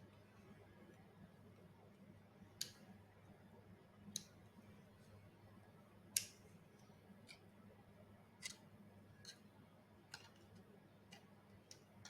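Near silence broken by about eight short, sharp clicks and taps at irregular intervals, the loudest about six seconds in: small screws and plastic parts being handled and fastened.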